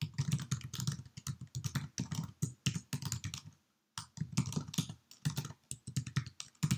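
Fast typing on a computer keyboard: quick runs of keystrokes, with a short pause a little past the halfway point before the typing resumes.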